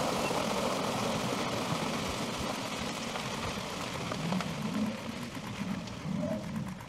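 Herd of African buffalo stampeding through a shallow river: a steady rush of splashing water and pounding hooves. Lower sounds come and go in the second half.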